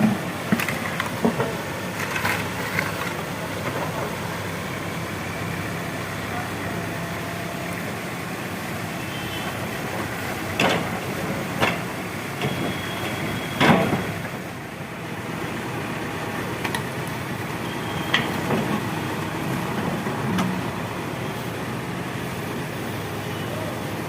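Backhoe loader's diesel engine running steadily while it loads garbage into a tractor trolley, with a few sharp knocks and clanks. The loudest knock comes about 14 seconds in.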